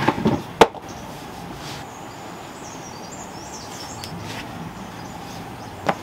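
A sharp knock about half a second in as a pair of sneakers is dropped onto a concrete floor, with a few softer knocks around it and another near the end as the shoes are put on. Between them a steady outdoor background hiss with a few faint high bird chirps.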